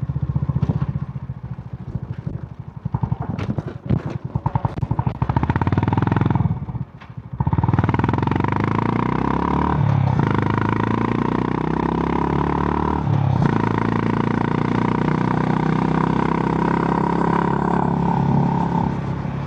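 Honda GB350's single-cylinder engine through its stock exhaust while riding, thudding unevenly for the first few seconds. It briefly drops away about seven seconds in, then pulls steadily, with the pitch stepping twice as it goes through the gears.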